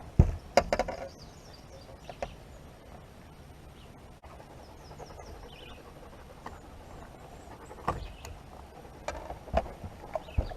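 A few sharp knocks and thumps, the loudest in the first second and a couple more near the end, over a quiet outdoor background with faint bird chirps in between.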